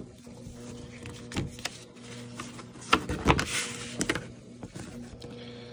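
Paper instruction booklet being opened and handled on a cardboard box: rustles and light knocks, loudest about three seconds in, over a steady low hum.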